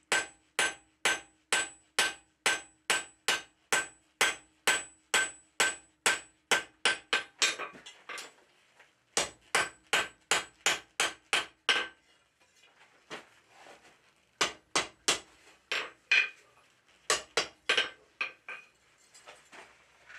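Cross-peen hand hammer striking hot steel on a steel anvil, about three blows a second with a steady ring from the anvil. After a short pause comes a second run of blows, then lighter, scattered strikes as the hammering slows.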